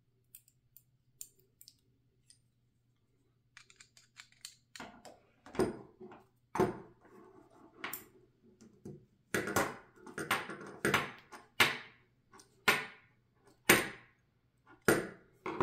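Screwdriver turning the screw that clamps a new stainless steel wire on a cheese slicer: small metallic clicks and scrapes. They are sparse and faint at first, then come as an irregular run from about five seconds in.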